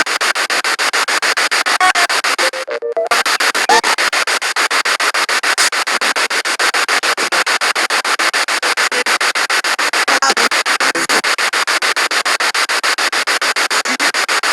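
Spirit box sweeping through radio frequencies: loud static chopped into rapid, evenly spaced pulses several times a second, with snatches of radio sound, and a brief drop-out about three seconds in.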